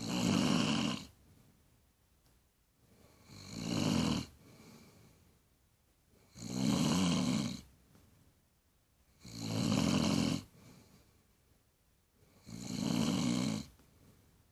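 A woman snoring loudly in her sleep: five snores at an even pace, about three seconds apart, each lasting about a second.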